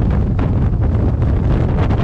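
Gale-force wind buffeting the microphone: a loud, unbroken low rumble that swells and eases with the gusts.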